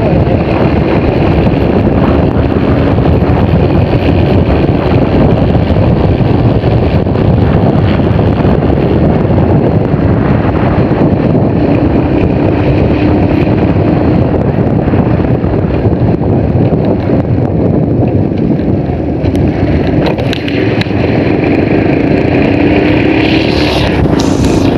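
Small motorcycle on the move: a loud, steady rush of wind on the microphone and road noise, with the bike's engine droning beneath.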